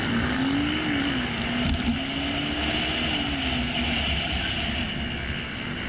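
Motorcycle engine running at speed, its pitch rising and falling a little, under heavy wind noise on the bike-mounted camera's microphone.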